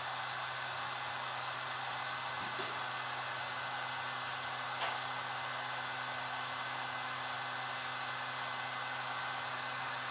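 Heat gun blowing steadily, its fan and airflow making an even hiss, as it warms the screen adhesive. A single sharp click about halfway through.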